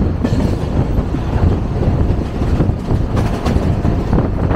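Container freight train rolling past: a steady rumble of wagon wheels on the rails, with a few sharp clacks over rail joints a little after the middle.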